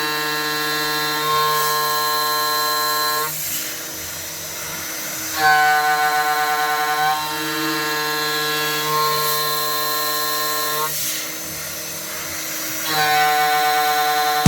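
DIY CNC router milling steel with a 3-flute 8 mm end mill: a pitched cutting whine with many overtones sounds in three stretches, fading for about two seconds between them as the tool comes in and out of the cut. It carries some chatter, which the builder judges acceptable.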